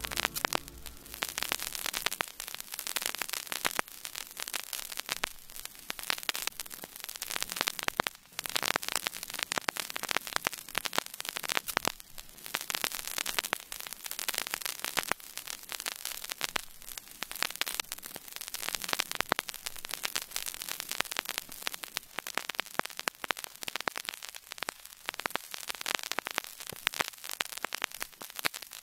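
Harsh static hiss with dense, irregular crackling that swells and fades in loudness, with no music left in it.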